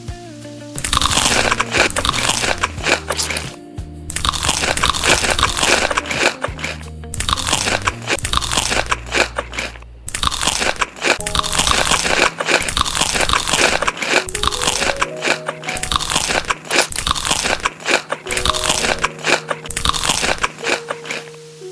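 Loud crunching from biting and chewing crisp food close to the microphone, in long runs broken by brief pauses about 4 and 10 seconds in, over background music.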